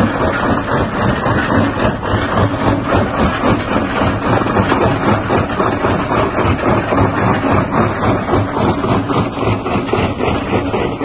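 Jaw crusher running and crushing river stones: a constant dense crunching and cracking of rock over a steady machine hum.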